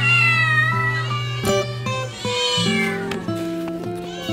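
Domestic cats meowing, two long drawn-out calls over background music. They are hungry cats crying for their dinner.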